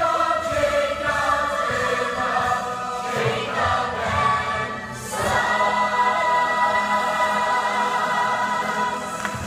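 Youth musical-theatre cast singing together in chorus, ending in a long held chord through the second half.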